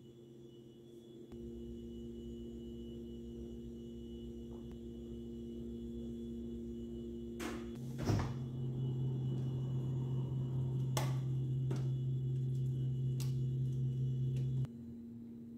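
Stainless steel side-by-side refrigerator door being handled and pulled open: several sharp clicks and a knock, the loudest about 8 s in, over a low steady hum.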